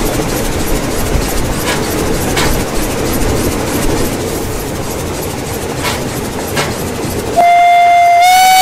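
Steam locomotive 98 886, a GtL 4/4 tank engine, running along with steady running noise and two pairs of clicks from the wheels passing over rail joints. About seven seconds in its steam whistle starts, a loud steady tone that steps up slightly in pitch a second later and keeps sounding.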